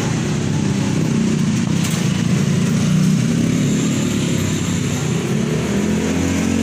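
A motor vehicle's engine running steadily: a continuous low rumble.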